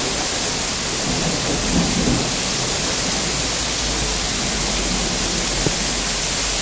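Steady hiss of heavy wet snow and rain falling onto the ground, balcony and trees, with a low rumble underneath from about halfway through.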